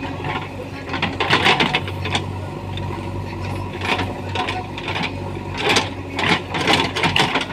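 JCB 3DX backhoe loader's diesel engine running steadily, with bursts of crunching and scraping about a second in and again near the end as the machine works.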